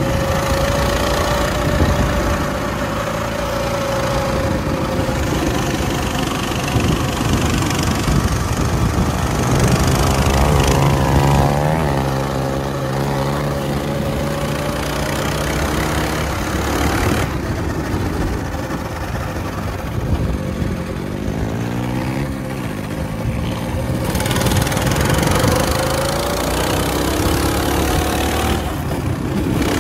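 Small dirt bike engines running and being revved, the engine note climbing and dropping several times, most clearly about ten seconds in and again around twenty seconds.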